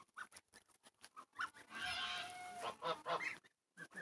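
Month-and-a-half-old domestic geese calling with short honks while grazing, with a hissing rush of noise in the middle and a quick run of calls near the end.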